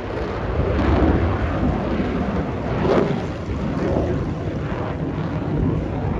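Aircraft engine roar as a plane passes at an air show: a loud, deep rumble that builds over the first second and holds, with wind buffeting the microphone.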